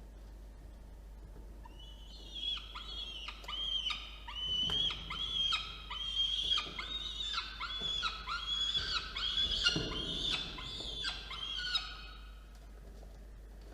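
Peregrine falcons calling: a rapid series of short, high, down-slurred calls, about two or three a second. The calls start about two seconds in and stop a couple of seconds before the end.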